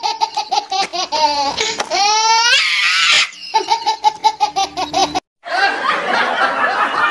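High-pitched laughing sound effect: a quick, evenly repeated ha-ha-ha, broken by a rising squeal about two seconds in. It cuts out for a moment just past five seconds, then comes back as a rougher, noisier stretch of laughter.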